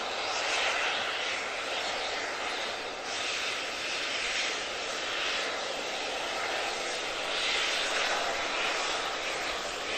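Stanier Pacific 6233 'Duchess of Sutherland' blowing off steam from its safety valves: a steady hiss that swells and eases every second or two. The safety valves lift when the boiler is at full pressure.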